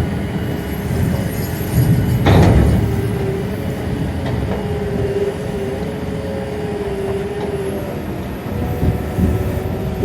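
Diesel machinery running while a spoil train's wagons are unloaded by diggers: a low rumble with a wavering hum, and one sharp knock about two seconds in.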